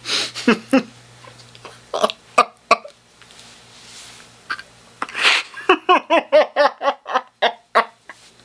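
A man's fit of Joker-style laughter: a sharp gasp, then a rapid run of pitched bursts, about five a second, over the last few seconds.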